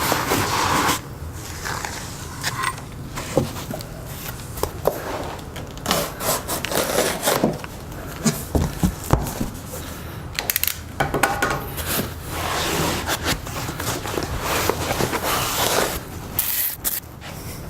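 Cardboard and foam packing rubbing and scraping as parts are pulled from a shipping box, with irregular rustles and scattered knocks.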